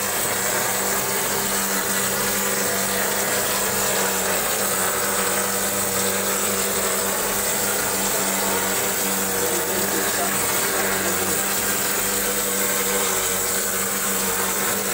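Gypsum plaster spraying machine running steadily: a constant motor hum under an even hiss of the spray.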